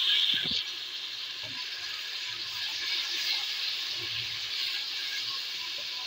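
Hot oil sizzling hard as freshly added ground tomato fries with the onion masala. Under a second in the sizzle drops suddenly to a steadier, quieter frying hiss while it is stirred with a wooden spoon, with a few soft knocks.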